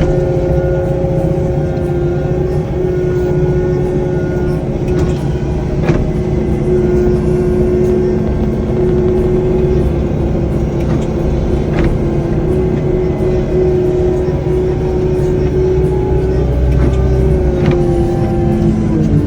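Wheel loader's diesel engine running hard under heavy load as it pushes through deep snow, with a steady whine over a low rumble. A few short clicks come through, and the whine dips briefly in pitch near the end.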